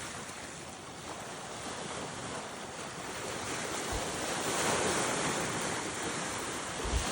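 Steady rushing of wind and water waves, swelling louder about halfway through, with a couple of faint low bumps.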